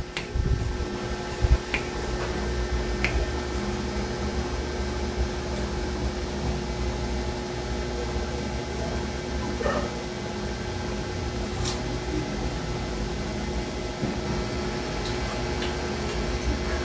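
Steady mechanical hum of a running room appliance, with a few faint short clicks scattered through it.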